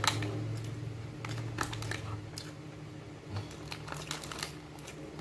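Close-up eating sounds: wet chewing with small mouth clicks, and the crinkle of the food box and its contents as food is picked out by hand. A low hum runs under it for about the first two seconds.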